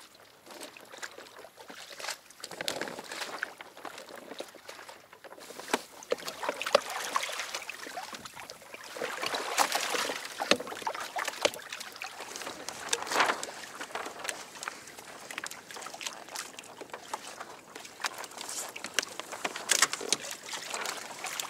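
Water sloshing and splashing against the hull of a Hobie Adventure Island sailing kayak under way, swelling and fading unevenly, with scattered small clicks and knocks.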